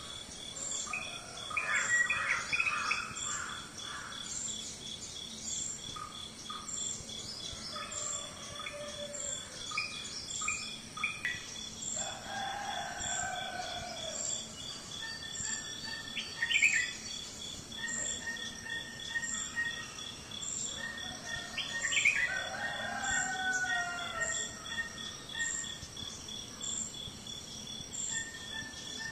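Outdoor ambience of birds calling and chirping, with a few louder falling calls. An insect keeps up a steady high-pitched pulsing chirr under them throughout.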